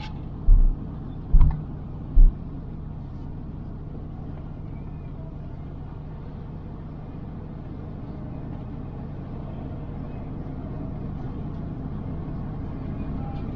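Car driving, a steady low engine and road rumble, with three short low thumps in the first couple of seconds.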